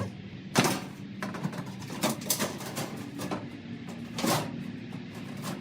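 A handful of sharp knocks and clicks, the loudest about half a second in and another about four seconds in, over a steady low hum.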